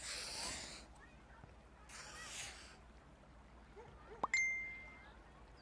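A compass pencil scratching twice across paper, then about four seconds in a phone message notification: a short rising chirp followed by one steady electronic ding lasting under a second.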